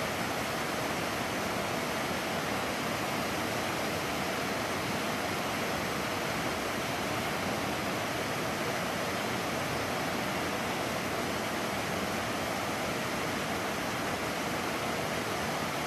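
Small stream's running water: a steady, even rush with no breaks.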